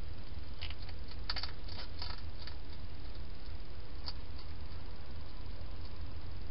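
Hedgehog eating at a bowl inside a plastic feeding box: a quick run of small sharp clicks in the first half and one more click about four seconds in, over a steady low hum.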